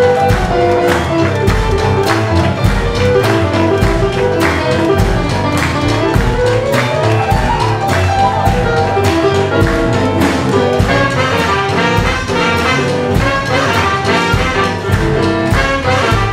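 Live jump-blues band playing: trumpet and tenor saxophone play horn lines together over a steady drum beat, bass, electric guitars and keyboard.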